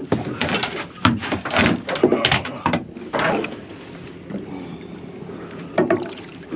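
A quick run of knocks and clatter as a gaff is pulled from its rack and bangs against a fiberglass boat, then quieter, with a short splash near the end as a gag grouper is lifted from the water.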